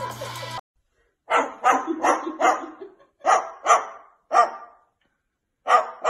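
White cockatoo imitating a dog, giving short, sharp barks: a quick run of seven, then another after a pause. Background music cuts off suddenly within the first second.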